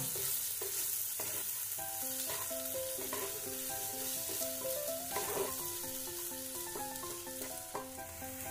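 Potato, onion and spice mixture sizzling in ghee in a nonstick frying pan while a wooden spatula stirs and scrapes it, with an irregular scrape every second or so over a steady sizzle.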